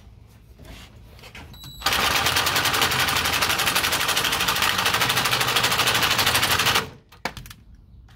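Power impact wrench hammering in a rapid, even rattle for about five seconds, then starting again right at the end.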